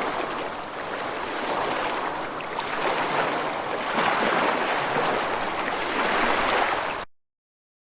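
Ocean waves washing onto the shore in slow swells, each surge rising and easing over a couple of seconds. The sound cuts off abruptly near the end.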